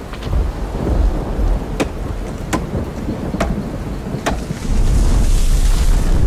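Rain and rumbling thunder throughout, with four sharp axe chops into a tree trunk a little under a second apart. After the last chop a louder rumble and rush set in as the tree comes down.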